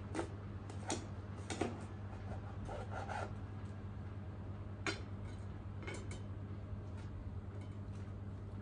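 Kitchen knife cutting through the stalk of a napa cabbage: a handful of crisp crunches and knocks against the table during the first six seconds, over a steady low hum.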